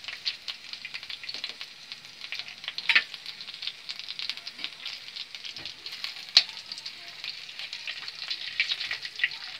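Whole garam masala spices, bay leaf and bark pieces, sizzling and crackling in hot oil in a kadai as they are stirred, with a few sharper clicks, the loudest about six seconds in.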